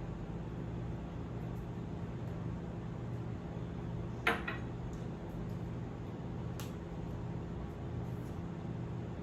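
A single sharp clink of kitchenware, such as a utensil or dish knocking, about four seconds in, ringing briefly, over a steady low hum.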